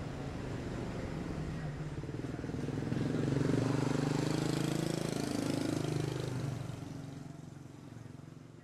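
A motor vehicle engine running and passing by: its sound swells, the pitch slides down as it goes past, and then the sound fades out.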